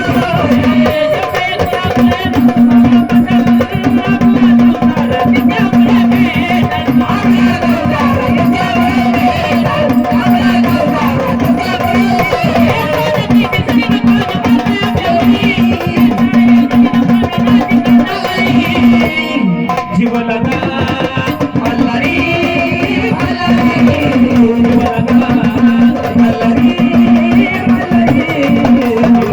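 Gondhal folk music: hand drums playing a busy rhythm under a steady held note and a wavering melody line. The music briefly thins out about two-thirds of the way through.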